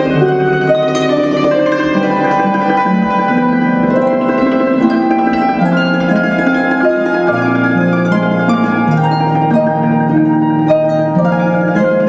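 Harp music: a slow, gentle melody of plucked notes over held lower notes, with a new, lower bass note coming in about seven seconds in.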